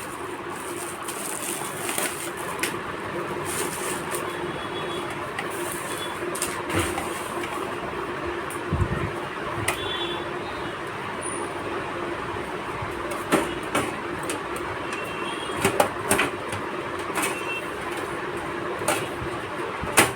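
Scattered clicks and knocks of a power supply unit being handled and seated into a metal computer case, over a steady background hum.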